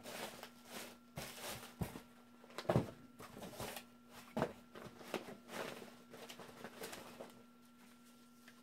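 Rustling and crinkling of plastic wrapping, a fabric case and cardboard packaging being handled and unpacked by hand, with a few sharp knocks, the loudest about three seconds in and again a little after four seconds. The handling dies down near the end.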